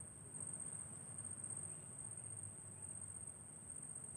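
Insects calling in a steady, unbroken shrill tone, over a faint low rumble.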